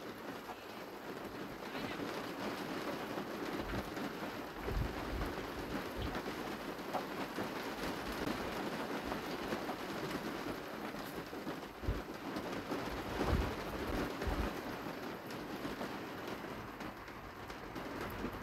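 Steady rain falling, an even hiss, with a few dull low thumps now and then.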